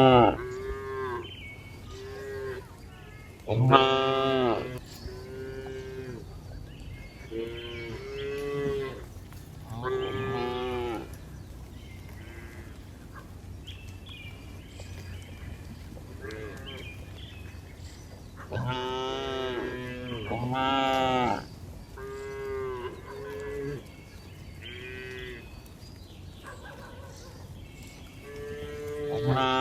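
Cattle mooing again and again: a series of calls rising and falling in pitch, a few long and loud, with shorter, quieter calls in between.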